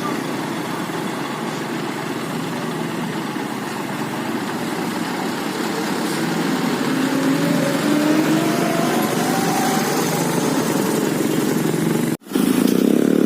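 Loaded truck's diesel engine straining uphill, its pitch climbing slowly as it revs up around the middle, with traffic noise. The sound cuts out for a moment near the end.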